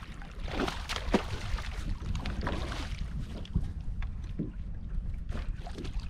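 Wind rumbling on the microphone over choppy water, with several short splashes and slaps of water against a kayak.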